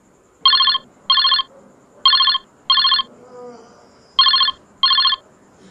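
Phone ringing in a double-ring pattern: three pairs of short electronic rings, each pair about two seconds after the last.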